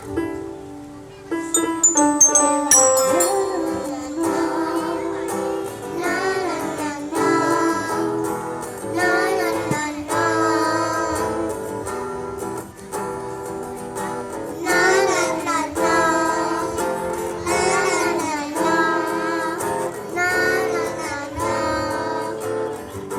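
Young children singing a Thai pop song in phrases over backing music, with a few high chiming notes about two seconds in.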